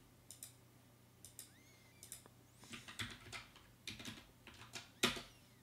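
Computer keyboard being typed on, keystrokes clicking in short irregular clusters, with one louder click about five seconds in.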